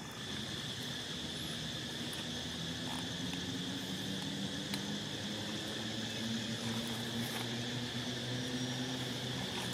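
Outdoor ambience of insects droning in a steady, high, unbroken tone, over a low steady hum.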